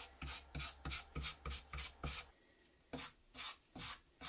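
Paintbrush scrubbing teak oil onto bare plywood in brisk back-and-forth strokes, about four a second, with a short break a little over two seconds in before the strokes resume.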